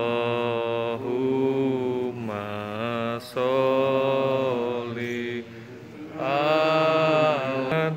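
Men's voices chanting a prayer in long, held phrases, with short breaks between the phrases.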